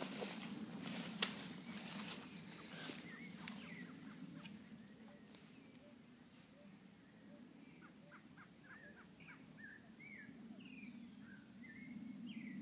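Footsteps brushing and crackling through grass and undergrowth for the first few seconds. After that, small birds chirp in a quick series of short calls.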